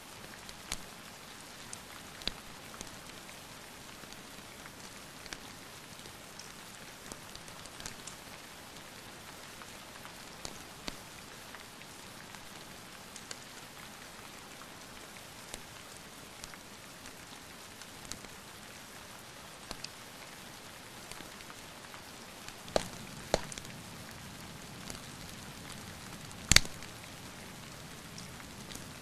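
Steady rain with scattered sharp crackles and pops of a wood fire. Several louder pops come near the end, the loudest about 26 seconds in, as a low rumble comes in.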